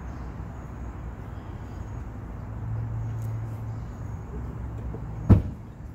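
Scissor jack being wound down with its hand crank handle, over a steady low rumble, with one sharp metal knock about five seconds in.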